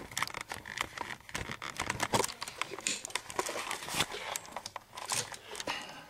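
Camera handling noise as the camera is taken down from its tripod: a run of irregular clicks, knocks and rubbing close to the microphone.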